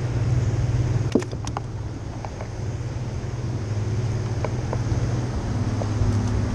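A steady low mechanical hum, with a few light clicks and knocks about a second in.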